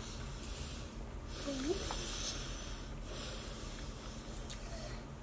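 Faint breathing close to the microphone over a steady low electrical hum, with one brief short vocal sound about a second and a half in.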